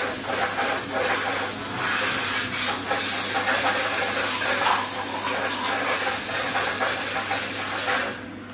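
Compressed-air blow gun hissing steadily as it blows coolant off a freshly machined part in a CNC mill; the blast cuts off sharply near the end.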